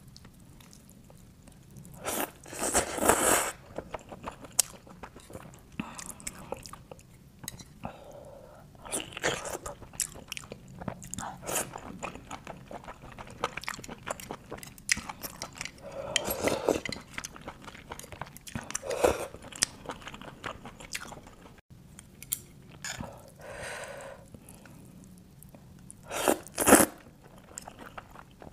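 A person eating garlic-topped grilled oysters: wet chewing and small mouth clicks, with several louder short slurps as the oyster is sucked from the shell. The loudest slurps come about two seconds in and near the end.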